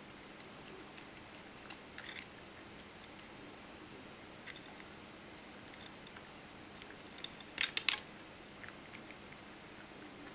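Ragdoll cat crunching dry kibble from a stainless steel bowl: scattered crisp crunches, with a quick run of several louder crunches and clicks about three-quarters of the way through.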